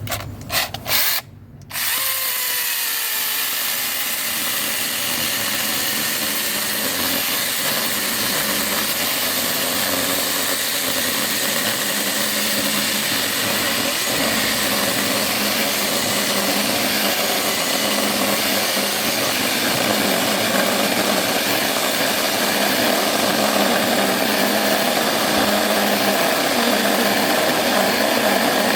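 Cordless brushless mini chainsaw: a few short trigger bursts, then the electric motor and chain run steadily and continuously.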